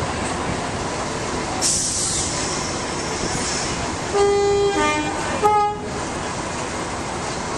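Diesel locomotive's air horn, presumably a Class 37's, sounding two blasts a little after four seconds in: a longer one that drops in pitch at its end, then a short second blast. A burst of air hiss comes about two seconds in, over a steady rumble.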